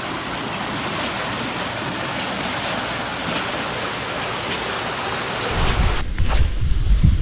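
A steady, even hiss of heavy rain. From about five and a half seconds in a low rumble rises, and the hiss falls away about six seconds in.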